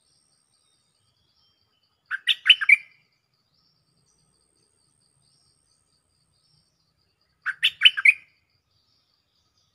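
Stripe-throated bulbul singing a short, quick phrase of about five bubbly notes, twice, some five seconds apart.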